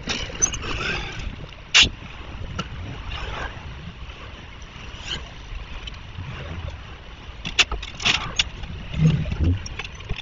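Steady low vehicle rumble with scattered sharp knocks and clatters as workers unload materials from a small dump truck onto the pavement. The loudest knock comes about two seconds in, and a cluster of clatters comes around eight seconds.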